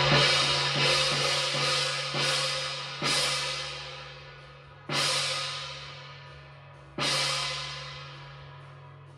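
A hand-held ship's gong (dora) struck with a mallet: a quick run of strokes, about three a second, for the first two seconds or so, then three single strokes about two seconds apart, each left to ring and fade. This is the traditional gong that crew sound through a Japanese ferry to announce sailing.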